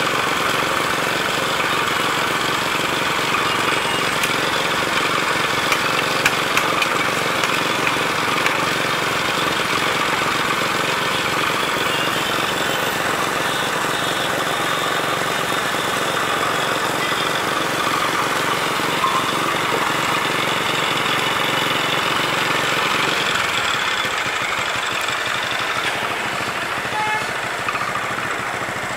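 Small engine driving a roller-type sugarcane juice crusher, running steadily.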